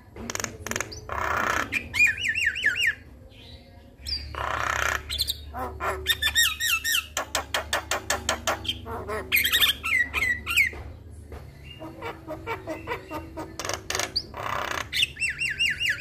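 Javan myna singing vigorously, a varied chattering song of harsh squawks, whistled notes sliding up and down, and a fast rattling run of clicks partway through.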